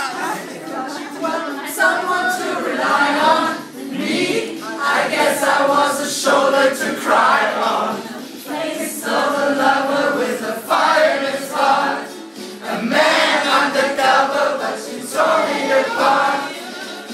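A small group of mixed voices singing a Christmas song together without instruments, in phrases with short breaths between them.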